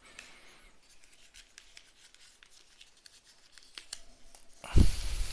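A printed paper leaflet being picked up and handled: soft rustling and small paper clicks, then a loud rustle with a low thump near the end as it is turned over close to the microphone.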